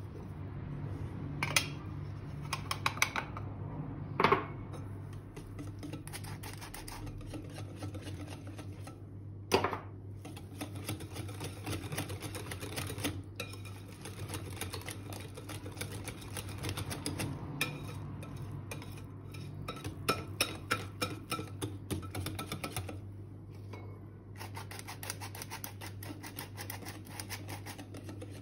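Wire whisk beating cake batter in a glass bowl, its wires ticking rapidly against the glass, with a few louder knocks against the bowl early on and about ten seconds in.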